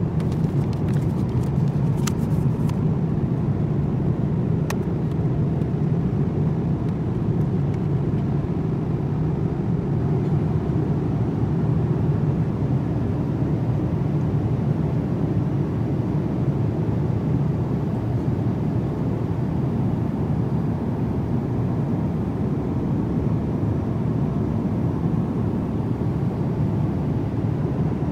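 Steady rumble and rush of air and engine noise inside the cabin of a Boeing 787-9 airliner in flight, with a few faint clicks in the first few seconds.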